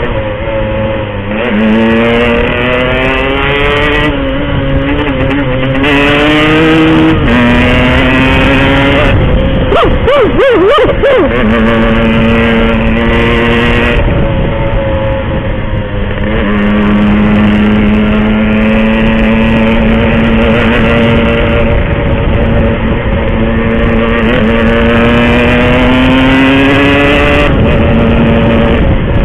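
Yamaha RX-King two-stroke single-cylinder motorcycle engine being ridden hard. Its pitch climbs under throttle and drops back at each gear change, several times over. It holds a steady cruise for a few seconds in the second half.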